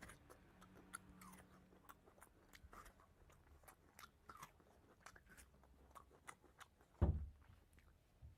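Faint, scattered small clicks and crunches, with one louder low thump about seven seconds in.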